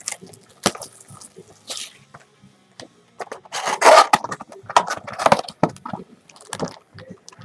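A cardboard Panini Prizm trading-card box being handled and opened by hand: irregular scrapes, taps and crinkles of cardboard and wrapping, loudest about four seconds in.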